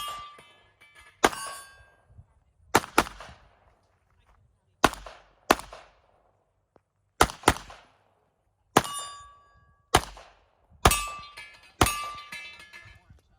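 A pistol fired about a dozen times at an irregular pace, some shots in quick pairs, with several hits on steel targets ringing out briefly after the shots.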